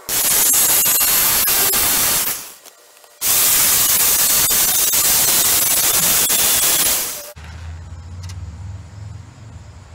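Jigsaw fitted with a scroll blade cutting through half-inch MDF along a curved letter outline. It runs in two spells, about two seconds and then about four, with a brief stop between, and cuts off about seven seconds in, leaving a low hum.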